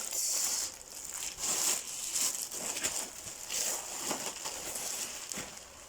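Plastic wrapping crinkling and rustling as it is handled, in irregular crackles.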